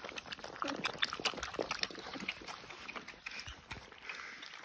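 Several puppies lapping milk replacer from a shallow pan: a quick, irregular patter of small wet laps and slurps, thinning out near the end.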